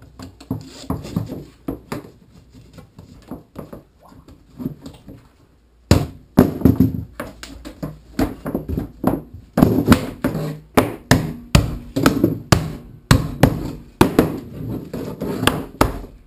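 Soft handling of fabric and plastic pipe, then, from about six seconds in, a run of sharp knocks, roughly two a second and unevenly spaced, as a mallet drives white PVC fittings and pipe together on a cat-perch frame.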